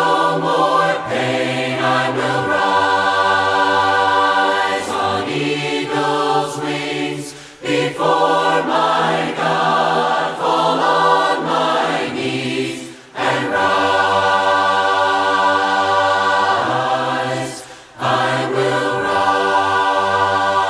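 Voices singing a hymn a cappella in harmony, holding long chords in phrases with short breaks between them, about 8, 13 and 18 seconds in.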